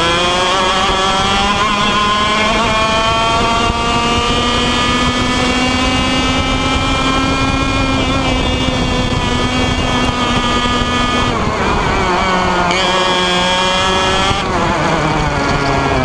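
IAME Leopard 125cc two-stroke kart engine running at racing speed. Its revs climb steadily for about seven seconds and hold, then fall away sharply twice in the last five seconds as the throttle is lifted, picking up again after each drop.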